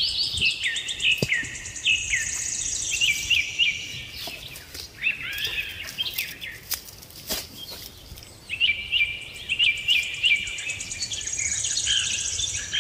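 Songbird singing: bouts of quick repeated chirping phrases with a fast, high trill over them, the first fading about four seconds in and the second starting again after about eight seconds. A few sharp clicks sound in the pause between the bouts.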